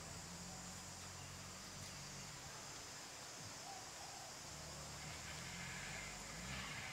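Faint forest ambience: a steady high-pitched insect drone, with a low rumble that fades out after about two seconds and returns about five seconds in.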